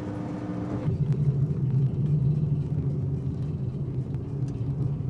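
Passenger car of an inclined mine railway running down its steep track: a steady hum gives way about a second in to a low, even rumble with faint clicks.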